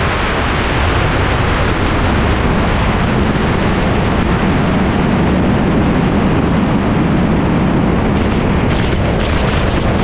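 Heavy, steady wind rush buffeting the microphone of a camera mounted on the outside of a car at highway speed, with a low engine drone underneath as the cars slow from about 73 to 53 mph.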